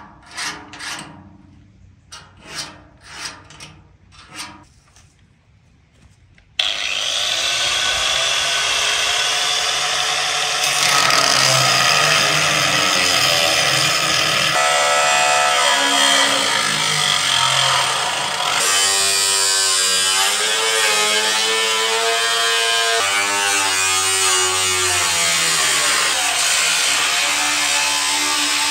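About seven sharp knocks over the first five seconds, then a small electric motor starts suddenly about six and a half seconds in and runs loudly and steadily, its pitch shifting.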